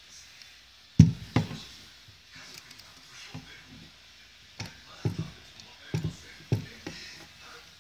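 Sharp knocks and clacks from a hand-held metal vacuum and compression tester pump being handled on a wooden bench: two loud knocks about a second in, then a run of about six knocks a few seconds later.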